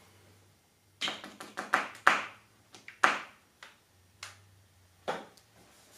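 Irregular sharp clicks and taps, about a dozen, from a white paint marker being handled over the rough casting of a vise part; the loudest comes about two seconds in.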